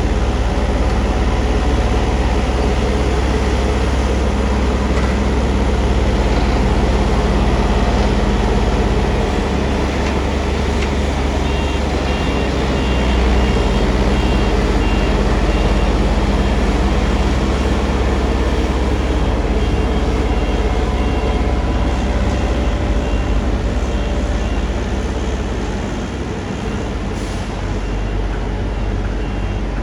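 Heavy diesel vehicles running at a road-construction site, a steady low rumble. A reversing alarm beeps repeatedly from about a third of the way in.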